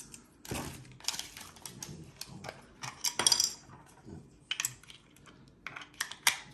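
Small plastic parts and packaging handled by hand: irregular light clicks and rustles, with a few louder clatters.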